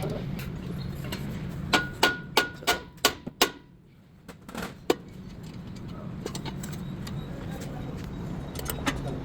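A quick run of five sharp metallic knocks, about three a second, with a faint ringing between them, then a single knock a moment later, over a steady low hum.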